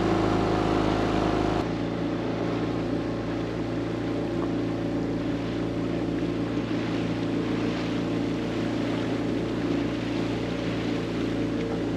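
Small yacht's outboard motor running steadily under way, with water and wind noise over it; the sound changes abruptly about a second and a half in.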